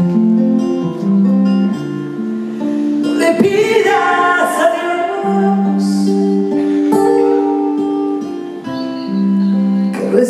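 Live acoustic-guitar ballad with held notes, sung by a woman over strummed guitar.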